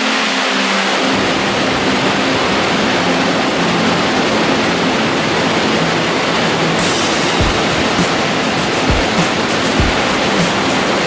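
Steady, loud rush of the Stigfossen waterfall pouring down the gorge beneath the Trollstigen road bridge. From about seven seconds in, a few low thumps come through the rush.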